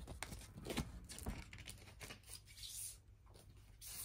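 Rustling and scraping of a cardboard LP jacket and its paper sleeve being handled as a vinyl record is taken out: a quick run of short scrapes and rustles, with a longer rustle near the middle.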